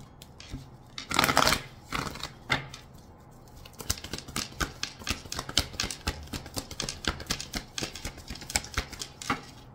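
Tarot cards being handled and shuffled: a quick papery swish about a second in, then a rapid run of light card clicks and slaps, several a second.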